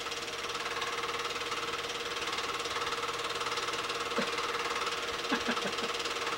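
8mm film projector running: a steady rapid clatter with a constant hum under it.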